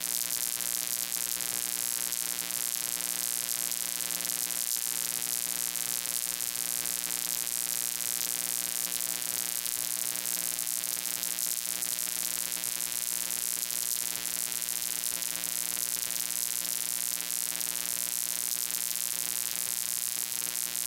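Steady electrical hum with a constant hiss over it, unchanging throughout.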